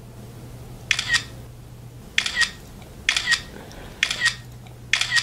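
Smartphone camera shutter sound, a quick double click, repeated five times about a second apart as a run of selfies is taken. A faint low hum sits underneath.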